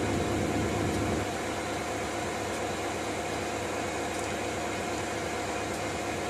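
Steady mechanical hum and noise of a locomotive heard from inside its cab, with a faint steady tone running through it; it drops a little about a second in.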